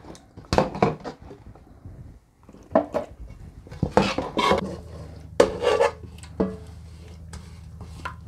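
A plastic scoop knocking and scraping against stainless steel bowls while wet, paste-coated chili peppers are scooped and tipped from one bowl into another: a string of separate clinks, some with a brief metallic ring. A low steady hum comes in about halfway.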